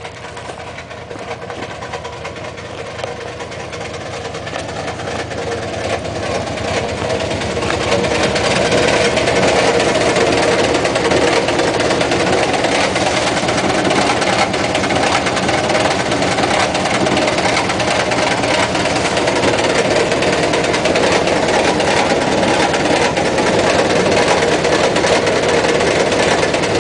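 Washing machine running hard and badly out of balance, rattling and knocking rapidly as it shakes and walks about. It grows louder over the first eight seconds or so, then holds steady.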